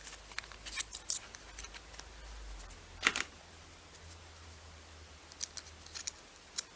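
Small plastic clicks and handling noises from a Brinno TLC300 time-lapse camera as its compartment is opened to take the micro SD card, with one sharper click about three seconds in.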